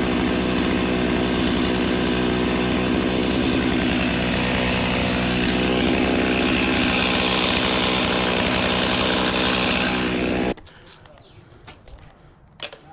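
Chainsaw running at high revs while cutting through a Mexican fan palm trunk, its pitch wavering under load. It cuts off suddenly about ten and a half seconds in.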